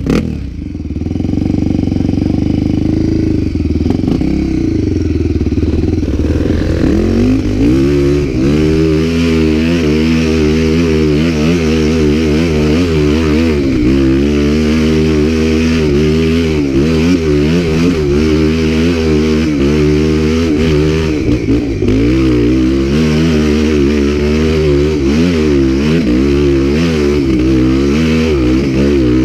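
Dirt bike engine running at fairly steady revs for the first several seconds, then revving up and down without pause from about seven seconds in as the throttle is worked on the trail.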